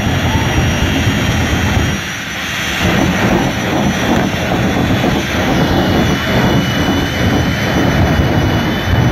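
Jet car's turbine engine running hard while the car stands at the start line: a loud, dense rush of noise that dips briefly about two seconds in, with a steady high whine over it in the second half.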